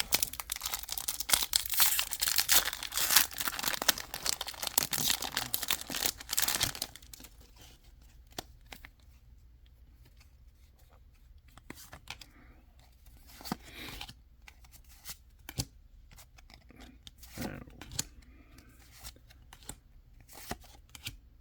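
Foil wrapper of a Pokémon card booster pack crinkling and tearing open for about seven seconds. After that it goes quieter, with scattered soft clicks and rustles of cards being handled.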